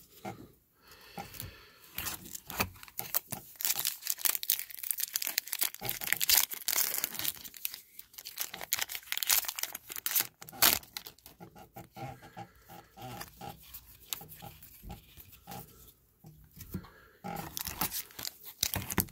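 Foil trading-card pack wrappers being torn open and crinkled, and a stack of cards being shuffled through in the hands, in quick irregular crackles and rustles.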